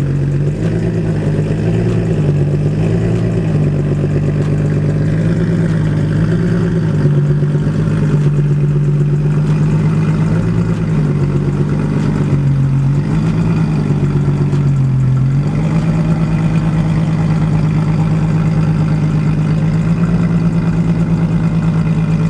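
Car engine running steadily, its low hum dipping and rising slightly in pitch several times before holding level.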